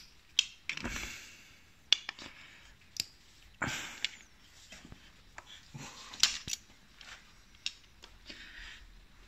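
A long screwdriver working tight screws loose on a removed motorcycle carburettor. It makes scattered, irregular sharp metallic clicks and short scrapes as the blade bites, slips and turns.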